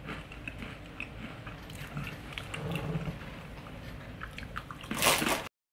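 Crunchy baked cracker (Arnott's Shapes Cheesy Garlic Pizza) being bitten and chewed: a run of short, crisp crunches. Near the end there is a louder rush of noise, then the sound cuts off suddenly.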